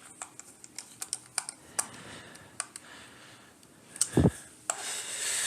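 Scattered light clicks and taps of a small screwdriver and plastic parts as the Attack Shark X6 gaming mouse's shell is screwed back together. A dull thump comes about four seconds in, and a hissing rush follows near the end.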